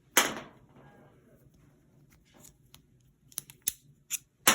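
Handling noises from a metal multitool and a 5/16 socket: a sharp click with a short scrape just after the start, a few light ticks later on, and another sharp click and scrape near the end.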